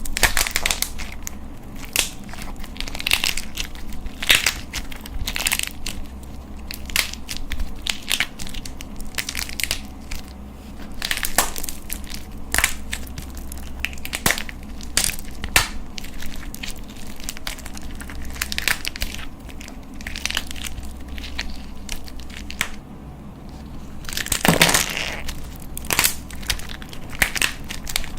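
Slime being pressed and worked by hand, giving a continuous run of irregular crunching, crackling pops, with a louder burst of crackles near the end.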